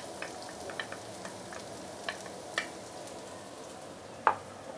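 Minced garlic and sliced shallots frying in hot oil in a wok: a steady gentle sizzle, with a few sharp light clicks, the clearest near the end.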